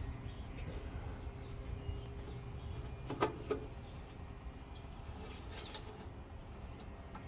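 Faint workshop handling noise: a few light knocks and clinks, the loudest pair about three seconds in, over a steady low hum.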